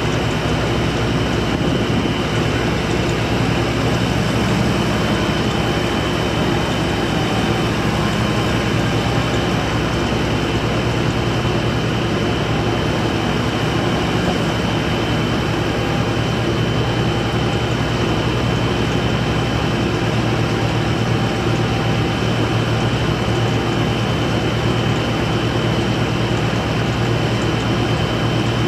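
IHI 35J mini excavator's diesel engine running steadily while the boom, arm and upper structure are swung and worked hydraulically, with a faint steady high whine over the engine hum.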